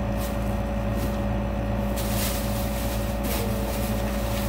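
Steady low machine hum, with brief rustles about two seconds in and again a second later.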